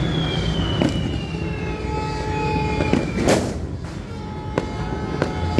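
Firecrackers and fireworks going off: sharp bangs about a second in, near three seconds and twice more near the end, with a louder rushing burst a little after three seconds. A high whistle slides slowly down in pitch over the first three seconds, over a steady low rumble.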